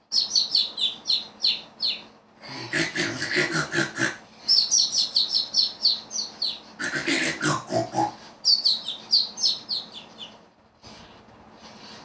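Cartoon-style snoring from a robotic parrot's speaker. Two rattling snores, each followed by a run of quick, falling, bird-like chirps. There are three chirp runs in all.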